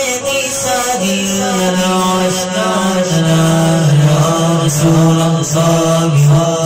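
A man's voice chanting a Sufi devotional litany into a microphone, amplified, in long held notes that step between a few pitches. About a second in, the chant drops to a lower, stronger held note.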